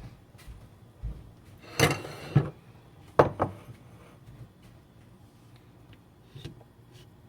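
Cookware and utensils clattering in a kitchen. There is a knock about a second in, then a rougher scraping clatter, a pair of sharp clicks just after three seconds, and a lighter knock near the end.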